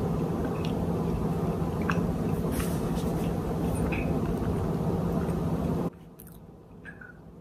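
Chewing and small mouth clicks while eating a soft donut, over a steady hum. The hum cuts off suddenly about six seconds in, leaving only faint chewing.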